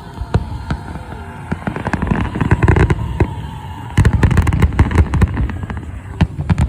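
Fireworks going off in rapid pops and crackles, growing denser and louder about four seconds in.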